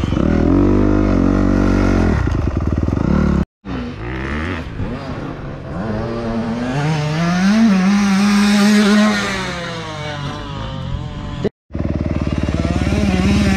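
Dirt bike engine running under throttle as it is ridden, its pitch rising and falling as the revs change. The sound is broken by two short silent gaps.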